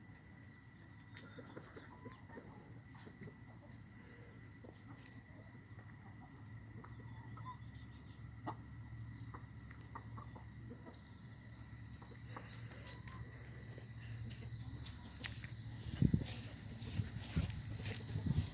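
Chickens clucking faintly, with scattered small clicks and rustles, and a few louder bumps near the end.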